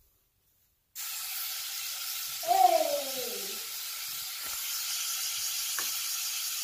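Wall-climbing RC car's suction fan starts about a second in and runs with a steady hiss. About two and a half seconds in, a short falling cry sounds over it, the loudest thing here. A couple of faint ticks follow.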